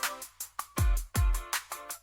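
Electronic dance music with heavy deep kick drums hitting about twice a second and short synth chords between the beats.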